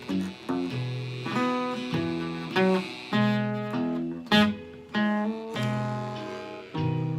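Blues guitar playing an instrumental passage: chords and single notes plucked about once a second, each struck sharply and left to ring down.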